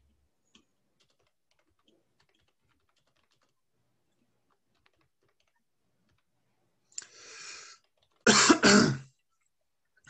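A man coughs twice, loudly, after a short breathy noise; a few faint clicks come before.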